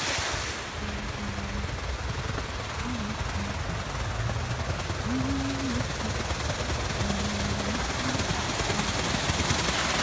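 Fountain water spilling over tiled weirs into a pool: steady splashing, growing a little louder near the end, over a low rumble.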